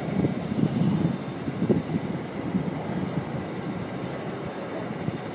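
Packaged heat pump unit running: a continuous low mechanical rumble, a little more uneven in the first couple of seconds and steadier after.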